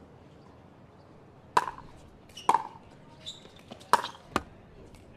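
Pickleball rally: four sharp pops of paddles striking the ball and the ball bouncing on the hard court, within about three seconds, starting about a second and a half in.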